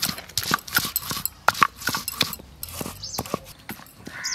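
Stone roller of a sil-nora grinding stone knocking and crushing garlic cloves and ginger on the flat stone slab, pounding them into paste: a run of irregular knocks, several a second.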